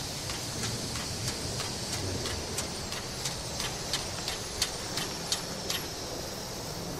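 Prussian T 18 (class 78) steam tank locomotive moving slowly with its train: a steady hiss of steam, with sharp metallic clicks and clanks about three a second that stop near the end.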